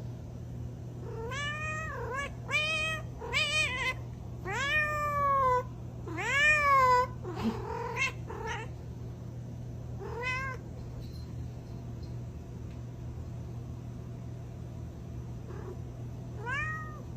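A cat meowing over and over: a quick run of about seven drawn-out, rising-and-falling meows, the loudest about six seconds in, then a single meow near ten seconds and another near the end.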